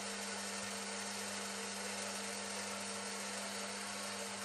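Steady electrical hum with a low, even tone and a faint hiss over it, holding constant throughout.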